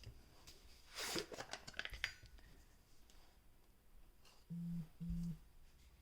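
A sharp clatter about a second in and a few light clicks of small metal tools being handled, then two short, low-pitched electronic beeps near the end.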